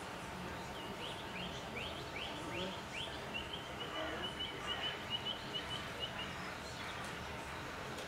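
A songbird singing: a run of about six quick notes that each slide down in pitch, then a fast trill of short notes at an even pitch lasting about three seconds, over steady outdoor background noise.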